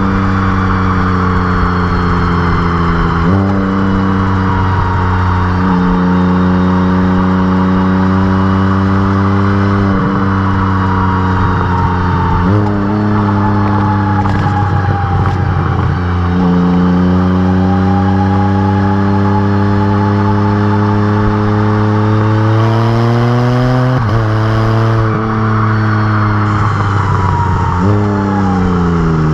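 Can-Am Spyder RT Limited's Rotax 1330 inline three-cylinder engine running through RLS Exhaust Crusher mufflers while riding on the road. The exhaust note holds steady or climbs, then drops abruptly several times as the bike shifts gears.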